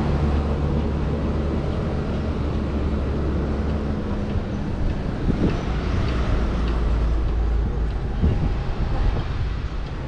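Steady low machine rumble with a droning hum, and a few faint knocks around five and eight seconds in.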